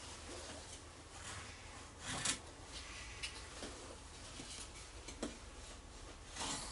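Soft rubbing and scraping of hands working at something, with a louder scrape about two seconds in and another near the end, and a few small clicks between.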